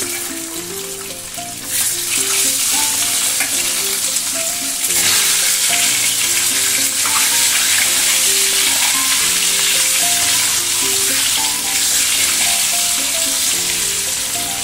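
Hard-boiled duck eggs sizzling as they fry in hot oil in a nonstick kadai, turned now and then with a spatula. The sizzle grows louder about two seconds in and again about five seconds in as more eggs go into the oil. Soft background music plays underneath.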